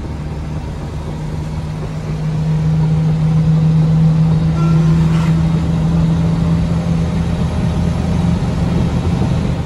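Truck engine running under way, heard from inside the cab: a steady drone that grows louder about two seconds in and holds.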